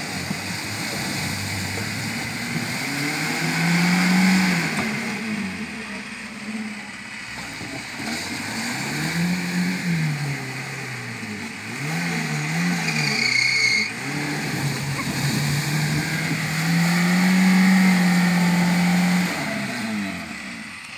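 Lada Niva engine revving hard under load in repeated surges, the pitch rising and falling again and again as the car pushes through a muddy stream and climbs the bank. The longest, loudest rev comes near the end.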